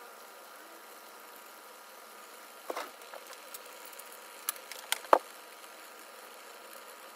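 Steady kitchen hum over a pot of soup simmering on a gas burner, broken by a handful of sharp clinks and knocks of kitchenware between about two and a half and five seconds in, the last knock the loudest.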